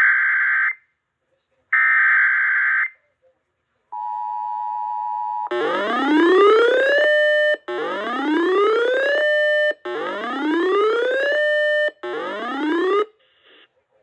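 Emergency Alert System activation tones: the last two screeching bursts of the digital SAME data header, a brief steady attention tone, then four rising whooping sweeps like a siren, repeated about every two seconds.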